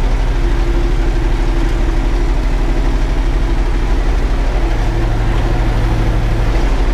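Erkunt tractor's diesel engine running steadily while pulling a harrow, heard from inside the cab. A low hum in the engine note grows stronger for about two seconds near the end.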